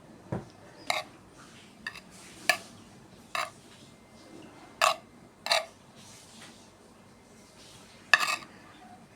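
Cutlery clinking against a plate, about eight separate sharp clinks at irregular intervals, with a low thump just after the start and the loudest clink near the end.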